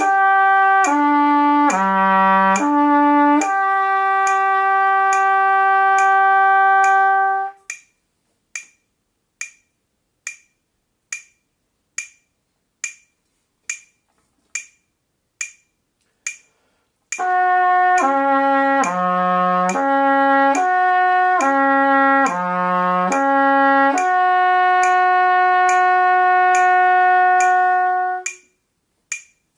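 Trumpet playing a lip-slur flexibility exercise across three harmonics: slurred quarter notes in falling patterns ending on a long held note, on the 1-2 valve combination. Then a metronome ticks alone at about 70 beats a minute for about nine seconds, and the trumpet plays the same exercise on valves 2-3, again ending on a long held note.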